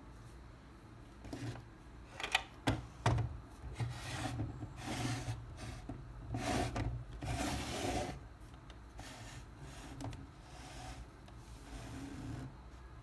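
Hands handling a plastic toy cash register: a few sharp clicks, then several seconds of rubbing and scraping that die down before the end.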